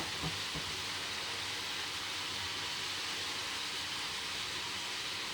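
Stir-fry vegetables sizzling steadily in oil in a frying pan.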